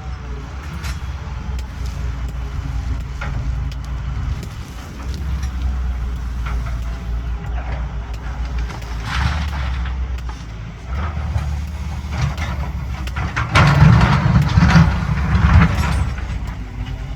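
Caterpillar 320BL excavator's diesel engine running steadily under load, with bursts of clattering noise, the loudest about three quarters of the way through.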